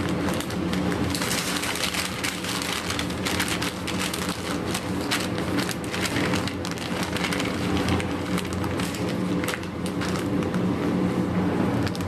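Plastic zip-top freezer bags crinkling and rustling as they are handled and filled with cooked vegetables, with many small sharp crackles throughout. A steady low hum runs underneath.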